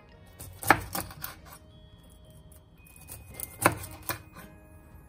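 Kitchen knife cutting through a horse mackerel on a bamboo cutting board, the blade knocking against the board in two short clusters of sharp knocks: one about a second in, another a little after three and a half seconds. Faint background music underneath.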